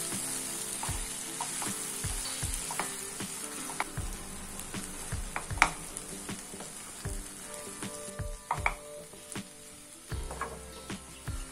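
Shredded chapathi and masala sizzling in a frying pan while a spatula stirs and tosses it. Irregular scrapes and taps of the spatula against the pan sound over the steady hiss, with one sharp tap about halfway through the loudest.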